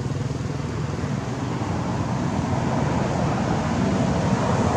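Steady low rumbling background noise that grows slowly louder, with no clear animal calls.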